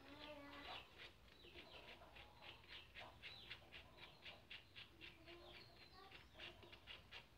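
Near silence, with faint birds chirping rapidly in the background.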